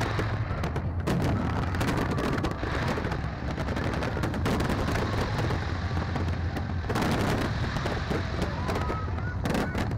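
Fireworks display: a dense, unbroken barrage of bangs and crackles from many shells bursting at once.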